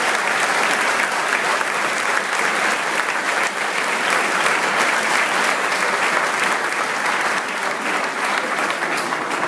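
Large audience applauding steadily, a dense clatter of many hands clapping.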